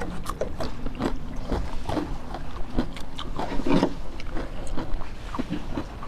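Close-miked chewing and mouth sounds of a person eating a meal by hand: irregular small wet clicks and smacks.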